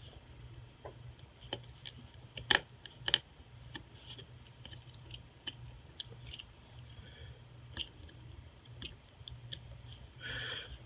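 Scattered small clicks and taps from handling an iPhone SE and small repair tools while the screen is being removed, with two sharper clicks close together about two and a half and three seconds in, over a faint steady low hum.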